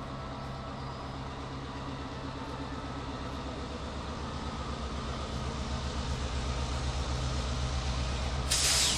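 Diesel locomotive engine running with a steady low hum, growing louder as it draws closer at slow speed. Near the end, a short loud hiss of air.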